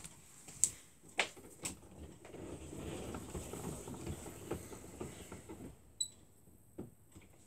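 Faint clicks and rustling: three sharp clicks about half a second apart, then a few seconds of soft scratching and rustling, a very short high-pitched beep about six seconds in, and one more click.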